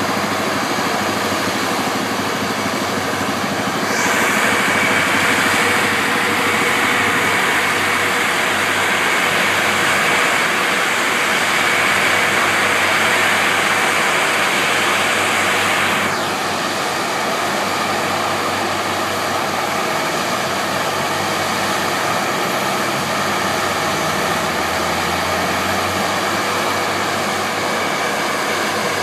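Several seismic vibrator (vibroseis) trucks with their diesel engines running steadily. A louder hiss with a steady high whine joins about four seconds in and cuts off suddenly some twelve seconds later.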